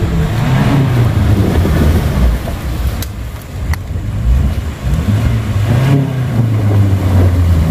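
Off-road 4x4's engine running and revving up and down, with two sharp clicks about three seconds in.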